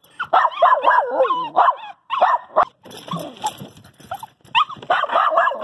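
A small dog whining and yipping in a string of short cries that slide up and down in pitch, with brief pauses between them.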